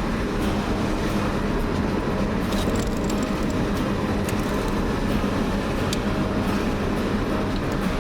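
Car driving at road speed, heard from inside the cabin: a steady rumble of tyre and road noise with a low, even engine drone and a few faint light ticks.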